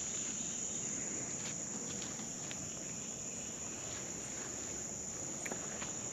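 A steady, high-pitched chorus of insects, with a few faint ticks.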